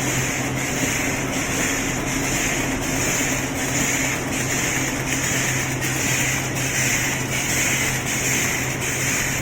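Automatic cutlery-set packing machine running, with a steady low hum under a regular repeating cycle about twice a second.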